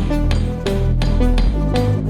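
Background music with a steady electronic beat and plucked melodic notes.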